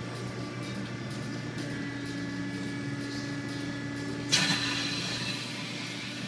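Roto-a-Matic plastic toy-molding vending machine running with a steady hum and several held tones while its mold is clamped shut. About four seconds in, a sudden loud hiss starts and fades away over about a second.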